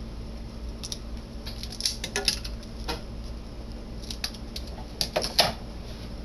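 Stiff plastic retail packaging being pried and bent by hand, giving an irregular scatter of sharp crackles and clicks, loudest about five seconds in.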